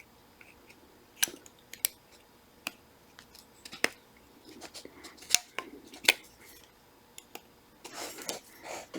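Sharp, irregular metal clicks and some light scraping: the back of a hobby-knife blade being worked against small metal parts of a Shimano 105 shifter mechanism to press a piece out and free a circlip.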